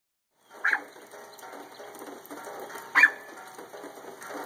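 A small dog barking twice, about two seconds apart, at the rain, over the steady hiss of falling rain.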